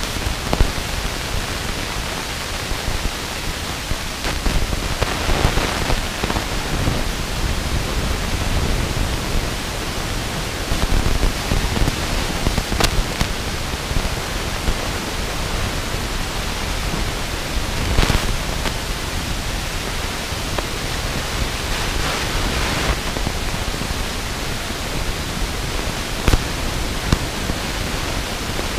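Steady rush of wind buffeting the camera microphone during a parachute descent under canopy, with a few brief sharp clicks.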